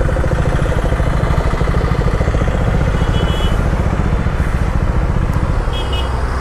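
KTM Duke 390's single-cylinder engine running at low revs with a steady rapid pulse as the motorcycle rolls slowly onto the verge and stops.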